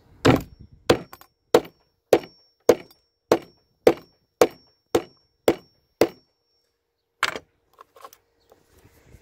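Hammer striking a nail through a leather belt into a wooden board: eleven steady blows, a little under two a second, each with a faint metallic ring. A single further blow follows after a short pause.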